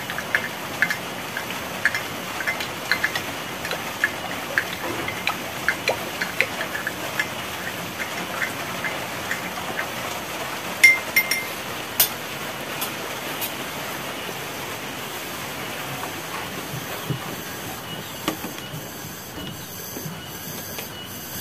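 Steady hiss of heavy rain, with light clinks of drinking glasses being handled on a tray for the first several seconds and two sharper clinks about halfway through.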